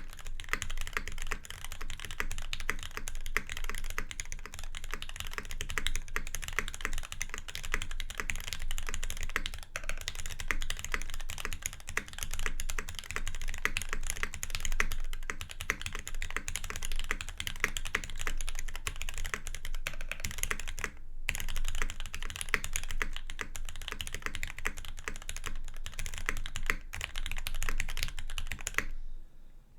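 Fast continuous typing on a custom mechanical keyboard with lubed Gateron Ink Black linear switches on an aluminium plate, under GMK keycaps. It pauses briefly about 21 seconds in and stops just before the end.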